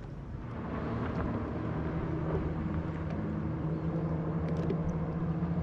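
A boat motor running: a steady low hum that swells about half a second in and then holds.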